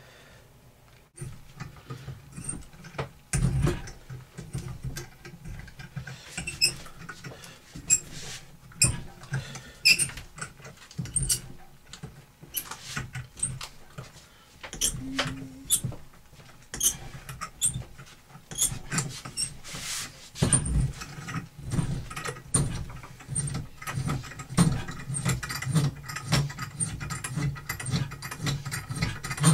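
Hand tap being cranked into a drilled hole in a velocity stack to cut threads: irregular clicks, creaks and squeaks of the tap and handle working through the metal, thicker in the second half.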